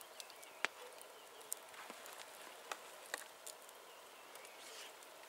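Quiet campsite ambience: a faint steady background with a handful of sharp clicks scattered through it, the loudest a little over half a second in.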